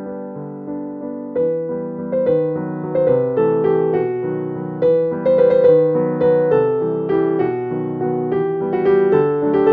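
Background piano music: a melody of single notes struck about twice a second over lower held chords.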